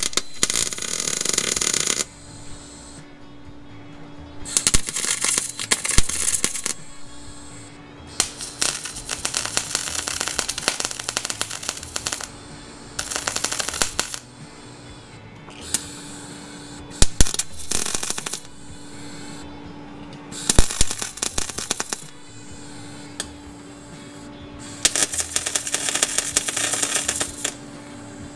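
MIG welder laying short bursts of tack or stitch welds on a sheet-steel repair panel: about eight crackling, sputtering runs of one to three seconds each, with brief pauses between them. Background music plays underneath.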